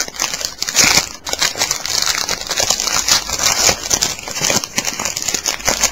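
Plastic trading-card pack wrapping crinkling and crackling as hands handle it, a dense run of small sharp crackles.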